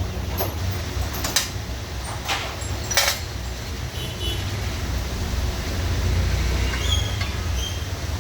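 Steady low vehicle rumble, with four sharp knocks or clatters in the first three seconds.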